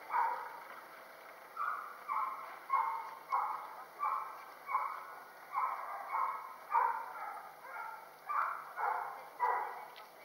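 A dog barking over and over, about one bark every half second to second, after a short pause at the start.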